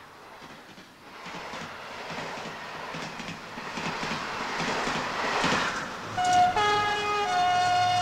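A train passing: a rushing rail noise swells steadily for several seconds, then about six seconds in a train horn sounds, a steady chord that shifts pitch a few times and is the loudest part.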